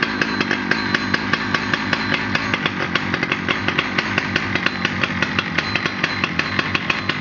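Husqvarna 2100 chainsaw's 99 cc single-cylinder two-stroke engine, just started, idling steadily with an even, rapid ticking and no revving.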